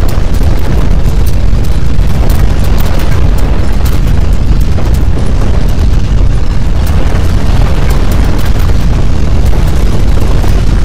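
Loud, continuous deep rumble of an earthquake's shaking, with a rough noisy layer on top and no let-up.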